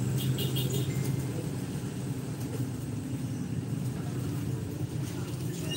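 Steady low background rumble, with a few short high chirps about half a second in.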